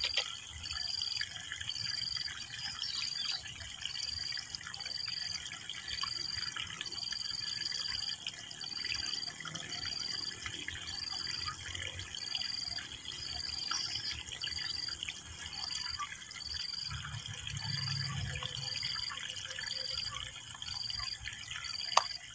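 Water trickling and lapping in a small stream, with a short high chirp repeating about once a second and a steady high whine behind it.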